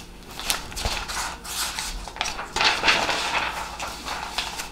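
Handwritten paper cards being handled and swapped: an irregular run of short rustles and light knocks.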